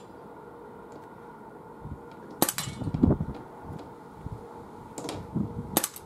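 Two suppressed shots from an Umarex SA10 CO2 blowback pistol, about three and a half seconds apart, each a short sharp crack. Gusty wind buffets the microphone between them with low rumbling surges.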